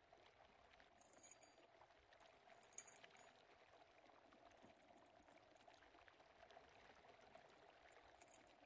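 Faint electroacoustic sound texture: a steady low hiss with a hum in it, broken by short spells of high crackling about a second in and again near three seconds.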